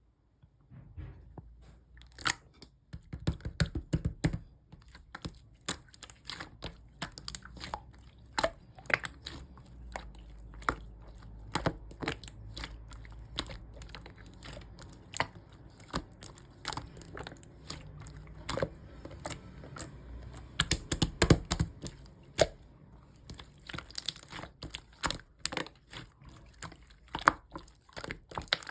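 Yellow clear slime being squeezed and pressed by hand, giving dense, irregular crackling clicks and pops over soft squishing, with the loudest run of pops about three quarters of the way through.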